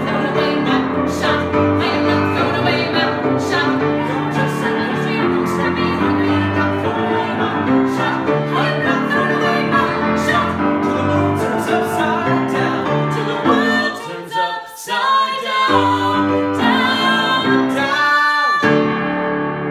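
A woman singing a show tune to grand piano accompaniment, loud and full, with a brief thinning of the music about fourteen seconds in. It builds to final chords that ring out and die away at the very end.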